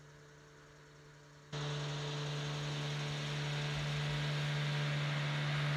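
A steady low hum with a light hiss, starting abruptly about a second and a half in after a near-quiet start.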